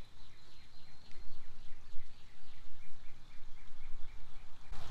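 Outdoor ambience: a small creature chirping rhythmically, about three short high chirps a second, over a low background rumble.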